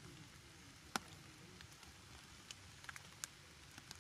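Faint, scattered taps of water drops on a clear plastic umbrella, with one sharper tap about a second in.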